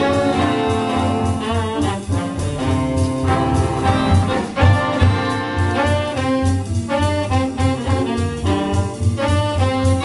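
Jazz big band playing live: trumpets, trombones and saxophones playing together over a walking bass and drums.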